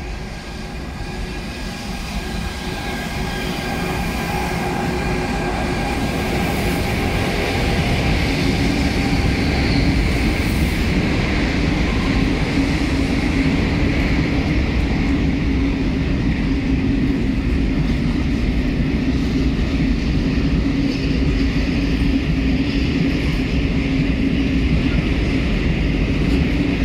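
Double-headed Renfe class 253 (Bombardier TRAXX) electric locomotives passing, with a steady whine from their traction equipment, followed by a rake of empty coil wagons rolling by on the rails with a steady low drone and rumble. The sound grows louder over the first several seconds, the whine dies away as the locomotives pass, and the wagon noise then holds steady.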